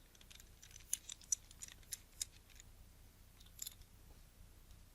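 Small sharp clicks and ticks of a screwdriver and tiny screws being handled against the lens while the bayonet mount is screwed back on: a quick run of clicks in the first couple of seconds, then a couple more about three and a half seconds in.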